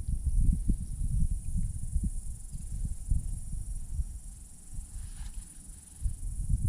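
Insects droning steadily and high-pitched, over irregular low rumbling bumps, loudest in the first seconds.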